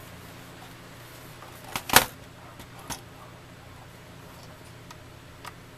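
Laptop's plastic case being turned over and set down on a desk: a short clatter of knocks about two seconds in, then a lighter knock about a second later and a faint tick near the end, over a faint steady hum.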